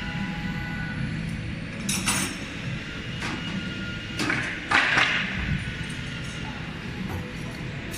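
Machine-shop noise among CNC routers: a steady low hum, with a few short rushing, clattering noises about two seconds in and again around five seconds in.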